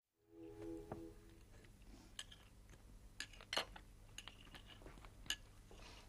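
Knives and forks clinking on dinner plates as people eat: faint, scattered sharp clinks that begin after a moment of silence, with a brief low pitched sound about half a second in.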